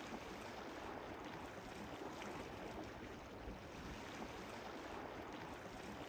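Steady wash of small waves lapping at a lakeshore, with light wind.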